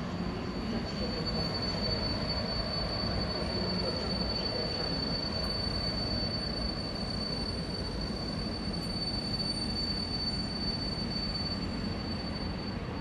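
EP07-class electric locomotive with its passenger train rolling slowly into the station, wheels giving a steady high-pitched squeal over a low rumble.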